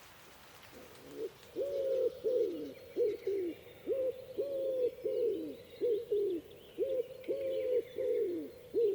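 A wild bird's low hooting calls repeated in quick succession, about two a second, starting about a second in, each call arching up and falling away. Fainter, higher birdsong chirps behind them.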